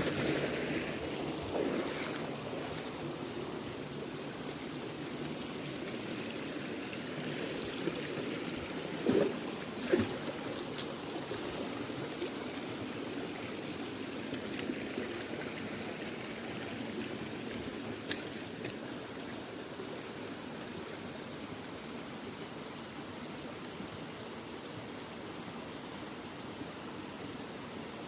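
Waterfall and stream water running steadily over rocks, with a couple of brief louder knocks or splashes about nine and ten seconds in.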